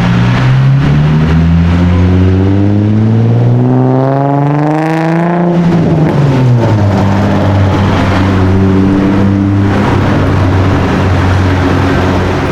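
Car engine with its note climbing smoothly for about five seconds, then dropping quickly and holding a steady lower note.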